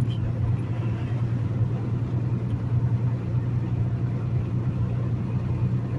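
Semi truck's diesel engine droning steadily with tyre and road noise, heard from inside the cab while cruising at highway speed.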